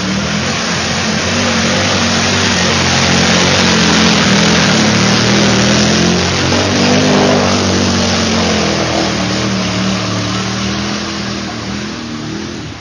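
Quad (ATV) engine revving hard as it ploughs through a deep mud-water hole, with water and mud splashing. The engine note shifts in pitch and fades over the last couple of seconds.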